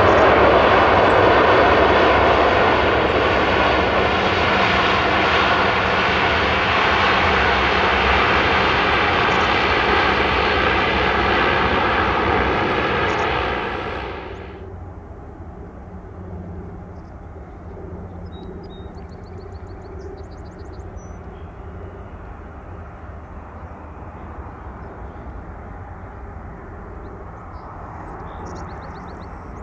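De Havilland Dash 8-400 turboprop running loud, a steady hum of several pitched tones over a rushing roar, cut off suddenly about 14 seconds in. After the cut comes a much quieter, steady low rumble from an arriving Boeing 737-400 jet.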